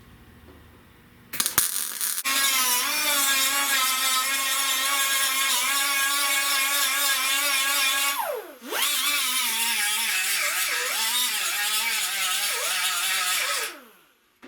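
Handheld electric power tool motor running in two runs. Each run holds a steady pitch and winds down in a falling whine when released. The second run dips in pitch several times as it is loaded against the metal.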